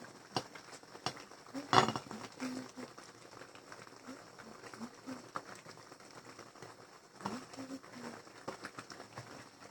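Kitchen utensils knocking and clinking a few times, the loudest knock about two seconds in.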